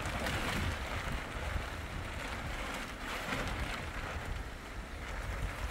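Stormy wind gusting and buffeting the microphone with a low rumble, over a steady hiss of rain. It swells at the start and again about three seconds in.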